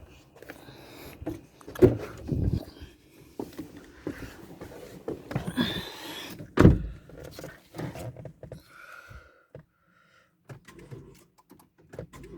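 Handling noises and several knocks as a car door is opened and shut, the loudest a heavy thunk a little past halfway. After that it goes quieter, with a few faint short tones.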